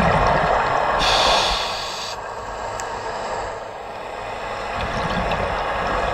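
A scuba diver breathing through a regulator underwater: a hissing inhale about a second in, with rumbling exhaust bubbles before it and again near the end.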